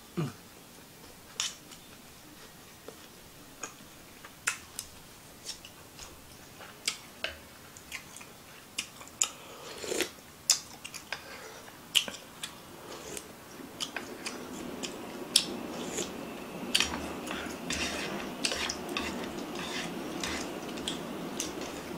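Close-up eating sounds of ramen: sharp clicks and mouth smacks from a wooden spoon and chopsticks working in the pan, with sipping of broth and slurping of noodles. The sound turns steadier and fuller from about two-thirds of the way in.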